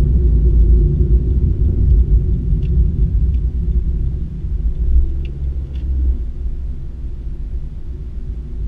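Low rumble of a car's engine and tyres heard inside the cabin while driving. It eases off in the last few seconds as the car slows to turn off the road.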